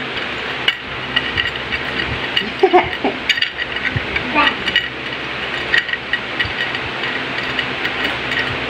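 Clear plastic packaging wrap crinkling and rustling as it is handled, with many small irregular clicks and ticks.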